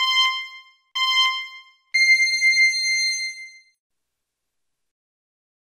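Electronic timer beeps: two short beeps a second apart, then a longer, higher beep about two seconds in that rings for over a second and fades. This is the ready-set-go start signal of a countdown timer.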